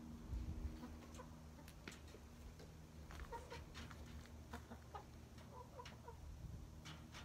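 Backyard hens clucking quietly in short, scattered calls, with a few light ticks, over a faint steady low hum.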